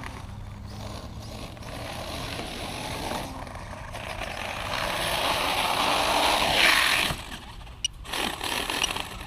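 Traxxas X-Maxx brushless RC monster truck being driven, its motor, drivetrain and tyres making a rough, noisy running sound that builds up over a few seconds and then drops off suddenly. The rear differential is failing: the owner feels it losing power and later finds the rear pinion and ring gear broken.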